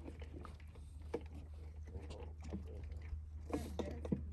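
A steady low hum with a few faint, muffled snatches of voice over it.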